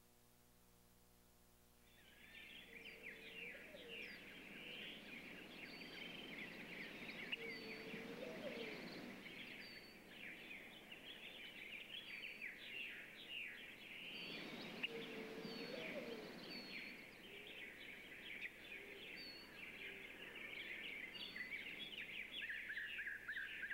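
A dense chorus of birds chirping and calling starts about two seconds in, with a few lower rising calls now and then.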